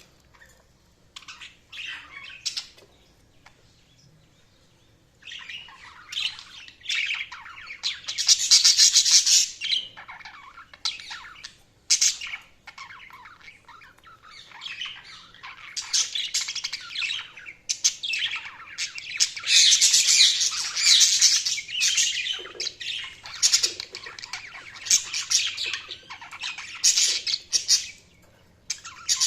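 Budgerigars chirping and chattering in quick, high bursts with squawks mixed in, sparse at first and then nearly continuous, loudest about eight seconds in and again around twenty seconds.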